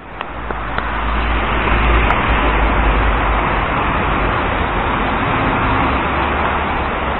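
Steady street traffic noise: cars going by with a low rumble that swells over the first second or two, then holds.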